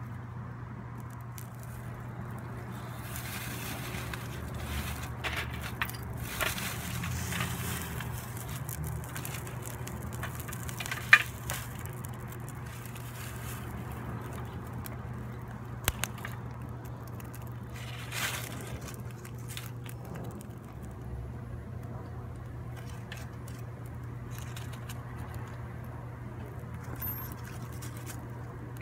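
Dry leaves, flowerheads and twigs rustled and snapped by hand while a small fire of tinder and sticks crackles. There are scattered sharp snaps, the loudest about eleven seconds in, over a steady low hum.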